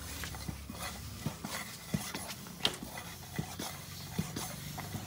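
Bicycle tyre being inflated with a cycle air pump: a string of irregular clicks and short puffs of air from the pump strokes, two or three a second.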